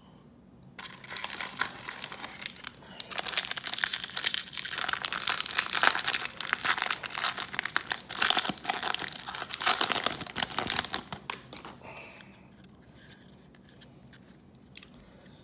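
Wrapper of a Topps baseball card pack being torn open and crinkled: a dense crackling that starts about a second in and dies away after about eleven seconds.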